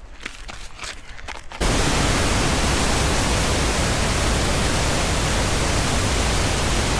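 A few footsteps on a trail, then, about a second and a half in, the steady rush of a cascading waterfall cuts in loud and keeps on evenly.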